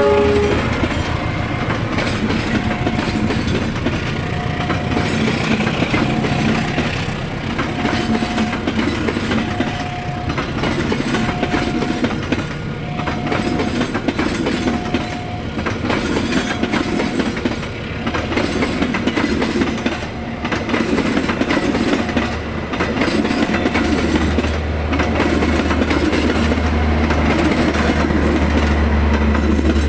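A train rolls past with wheels clicking over the rail joints, just after its horn cuts off. A level-crossing warning bell rings a short tone about every two seconds. A deep steady diesel hum comes in about three quarters of the way through.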